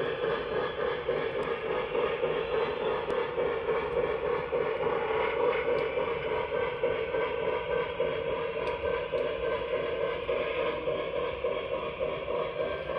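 O gauge model freight train rolling past on three-rail track: a steady rumble of metal wheels on the rails, with a few faint ticks.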